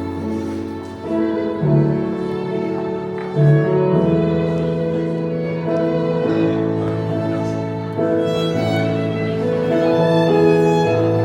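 Slow instrumental string music: a violin melody over long held lower notes, the chords changing every second or two.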